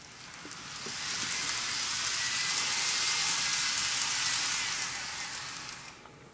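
N gauge model of the JR Kyushu 800-1000 series Shinkansen running along its track close by: a high, hissing rattle of wheels on rail with a faint motor whine. It swells to a peak about halfway through and fades away near the end.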